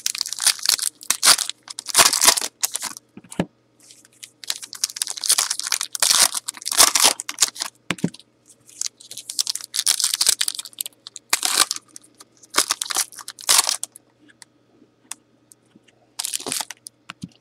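Foil wrappers of Panini Prizm football card packs being torn open and crinkled, in repeated irregular bursts of rustling with short pauses between.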